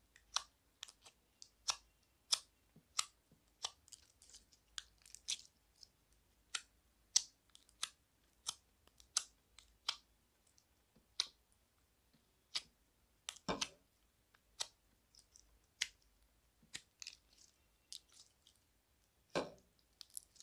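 Slime being kneaded and squeezed by hand, giving sharp sticky clicks and pops at irregular intervals. Two longer, louder squelches come about two-thirds of the way through and near the end.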